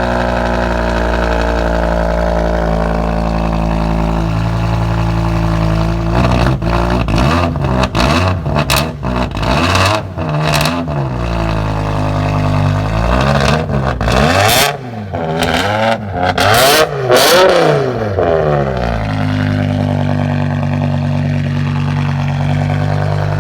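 BMW M5 E60's 5.0-litre V10 (S85) on a straight-piped Akrapovic exhaust, very loud: it idles, is blipped in a run of quick revs for about five seconds, settles briefly, gets another burst of higher revs with sharp cracks between blips, then drops back to a steady idle near the end.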